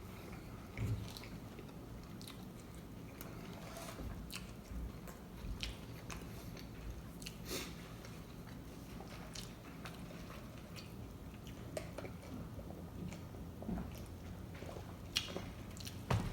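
A person chewing and biting into tacos with their mouth close to the microphone, with scattered wet smacks and crunches.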